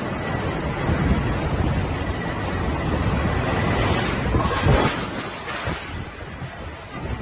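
Typhoon winds and driving rain rushing in strong gusts that buffet the phone's microphone, with a loud bang about four and a half seconds in.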